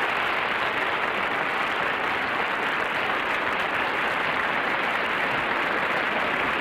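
Studio audience and panel applauding, a steady, dense clapping.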